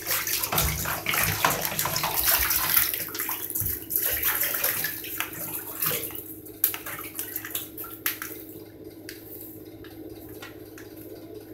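Baby raccoons splashing in bathtub water: busy, irregular splashing for the first half, thinning out to a few scattered splashes and sharp clicks.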